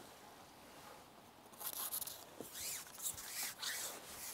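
Rubbing and rustling in several bursts, starting about a second and a half in: a carbon fishing pole being handled and pushed out, with clothing rustle.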